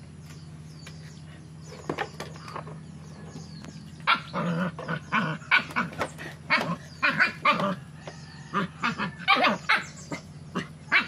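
Dog barking and yipping: a couple of short barks about two seconds in, then a rapid run of short, falling-pitched barks from about four seconds in.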